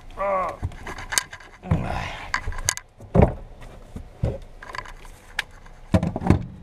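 Irregular clinks, scrapes and a few heavier knocks of hand tools and a person shifting around on the bare metal floor pan of a car cabin stripped of its seats. A short vocal sound, like a grunt or breath, comes near the start.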